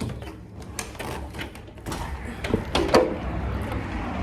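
A door being opened and shut, with several clicks and knocks, the loudest about three seconds in. After that a steady low rumble of outdoor traffic rises.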